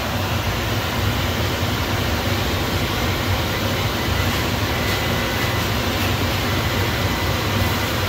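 Steady low machinery drone with an even rushing hiss over it, unchanging throughout.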